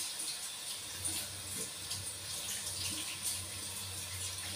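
Kitchen tap running into a sink: a steady splashing of water.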